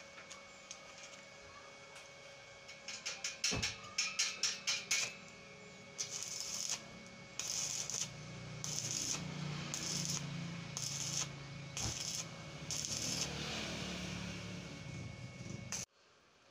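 Stick-welding arc from a small inverter welder with a thin 6013 rod on galvanized square tubing: a quick run of sharp snaps about three seconds in, then a string of short crackling, hissing bursts of arc, each under a second and about a second apart, with a low hum under them. It stops abruptly near the end.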